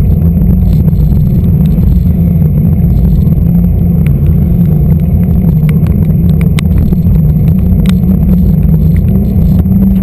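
Steady low rumble of wind buffeting the microphone and a knobby mountain-bike tyre rolling on wet asphalt, picked up by an action camera mounted beside the front wheel at riding speed. A few sharp ticks sound through it.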